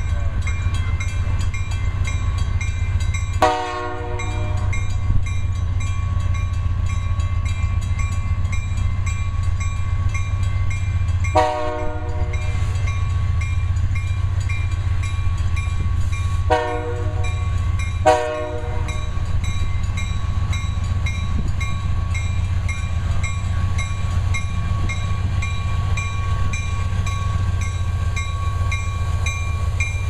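A Canadian Pacific EMD SD60 locomotive's air horn sounds four blasts for a grade crossing, the last two short and close together. Under it the diesel locomotives run with a steady low rumble as they pull the freight train away, and the crossing signal bell keeps ringing.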